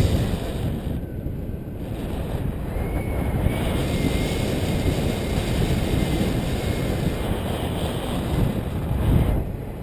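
Airflow of a paraglider in flight rushing over the camera microphone: a steady low wind rumble, the relative wind of the glider's forward speed.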